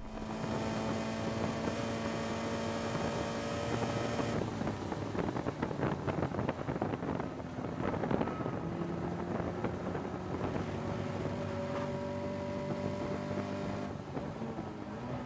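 Caterham 310R's 1.6-litre four-cylinder engine heard onboard at speed on a race lap, with wind and tyre noise. The note holds steady at first, then climbs through a long pull from about the middle. Near the end it drops as the driver lifts off and brakes.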